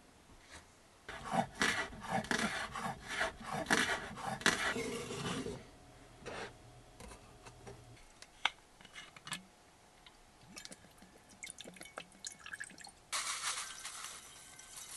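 Kitchen handling noises: a flurry of knocks and rustles of bowls and utensils for the first few seconds, then a few light clicks. About 13 s in, granulated brown sugar is poured from its paper pack into a small saucepan of balsamic vinegar, a steady hissing patter.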